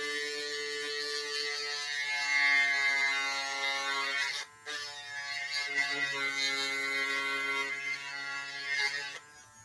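Small handheld rotary tool with a fine bit grinding down a plastic action-figure joint, a steady whine with a buzzing hum. It stops briefly about halfway through, starts again, and stops just before the end.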